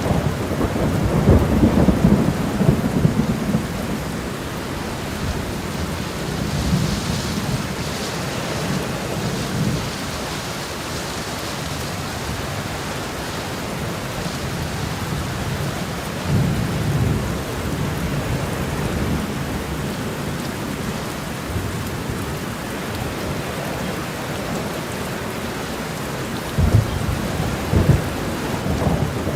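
Steady, heavy rain with low rolling thunder. The rumbles swell in the first few seconds, again about halfway through, and near the end.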